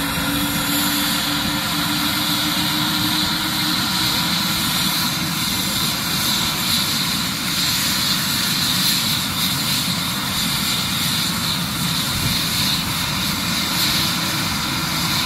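Eurocopter EC145 rescue helicopter's twin turbine engines running steadily while it sits on the ground, with a constant high whine over a dense lower rumble.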